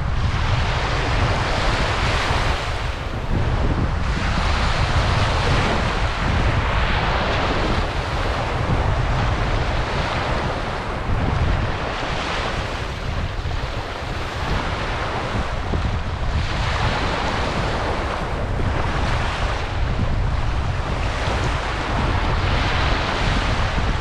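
Small sea waves breaking and washing up over sand at the water's edge, the wash swelling and falling back every couple of seconds, over a steady low rumble of wind on the microphone.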